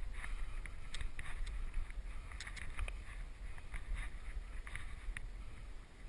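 Wind rumbling on the microphone, with irregular clicks and scrapes of shoes and hands on bare rock during a scramble up a rocky gully.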